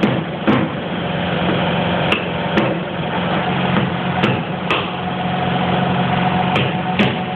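Hammer blows on a chisel chipping at a subway car's floor: sharp metallic strikes, mostly in pairs about half a second apart, about every two seconds. A steady machine hum runs underneath.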